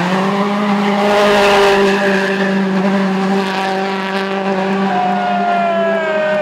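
WRC rally car's turbocharged 1.6-litre four-cylinder engine held at steady high revs while the car spins donuts, its tyres squealing and skidding on tarmac. A whistling tone falls in pitch near the end.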